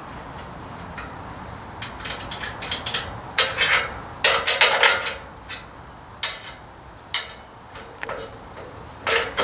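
Irregular metallic clinks and knocks of hand tools against the steel parts of a sawmill carriage while a part is adjusted by hand. The knocks come in quick clusters, busiest in the middle, with single knocks between and a short burst near the end.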